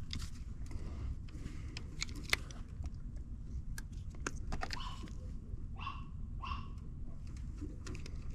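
Scattered small clicks and taps of hands working on low-voltage wiring at a relay, over a steady low rumble, with two short animal calls, like barks, about six seconds in.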